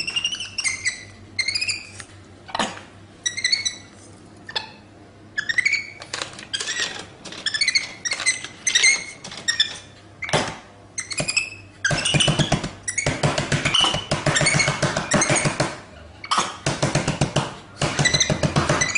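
Capuchin monkey giving short, high-pitched squeaky chirps that glide up and down, several a second with pauses between. About twelve seconds in the calling becomes denser and louder, a rapid run of pulsing squeaks.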